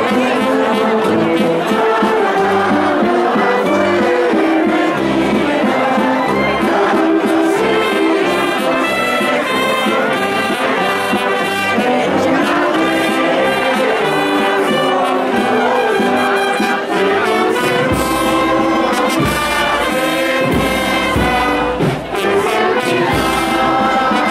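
Brass band playing a processional march, with trumpets and trombones on sustained melody notes. Heavy low drum beats come in about three-quarters of the way through.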